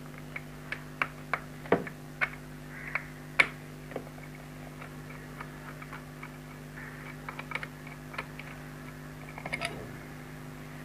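Small screwdriver working screws out of a plastic extension box casing: scattered, irregular light clicks and ticks of metal on plastic, with a closer run of plastic clicks near the end as the cover comes off. A steady low hum runs underneath.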